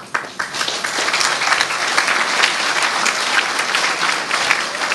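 Audience applause, breaking out and swelling over the first second, then holding steady.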